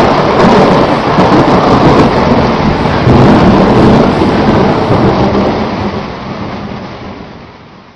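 Loud rumbling thunder with a rain-like hiss, which fades out over the last three seconds.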